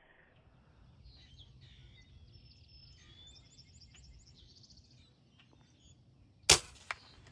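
Karma Airguns EQ .25 cal pre-charged pneumatic bullpup rifle firing a single shot about six and a half seconds in: one sharp crack, followed a moment later by a fainter click. Small birds chirp faintly before the shot.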